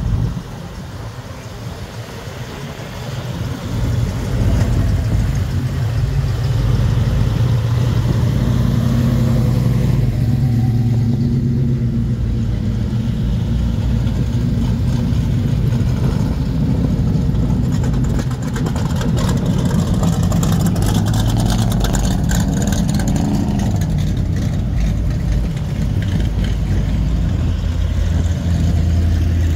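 Classic and custom hot rods driving slowly past one after another, their engines running at low speed. The engine sound is lighter for the first few seconds, then louder from about four seconds in as the cars come close.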